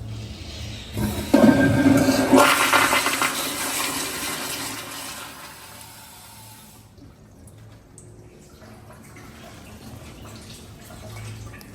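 Public restroom toilet flushing: a sudden loud rush of water about a second in that fades over the next few seconds into a quieter steady hiss.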